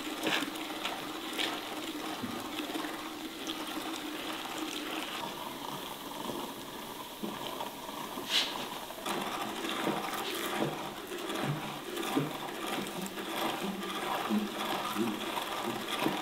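Hand-cranked metal meat grinder turning steadily, grinding moist sprouted wheat through its cutting plate, with many small clicks and creaks throughout.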